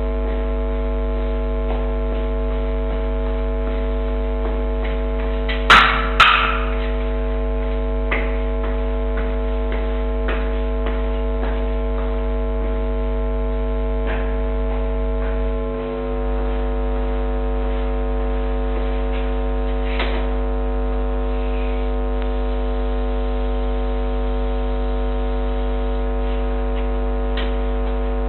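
Steady electrical mains hum with a stack of steady tones on a security camera's audio line. About six seconds in there are two sharp bangs a fraction of a second apart, the loudest sounds here, followed by a few faint clicks.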